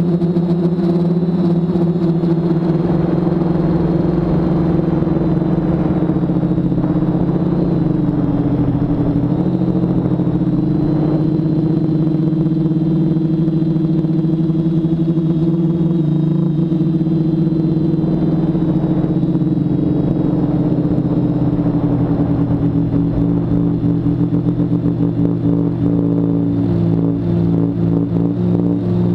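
TBS Discovery quadcopter's four BirdDog 900kv brushless motors spinning 10x4.5 props in flight: a steady loud hum with small shifts in pitch as the throttle changes, dipping about eight seconds in and wavering near the end.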